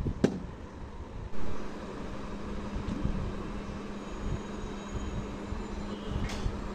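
A single sharp tap of a hand on the upturned pudding mould resting on a porcelain plate, over a constant low rumbling noise on the microphone. From about a second and a half in, a steady low hum runs underneath, and a faint click comes near the end.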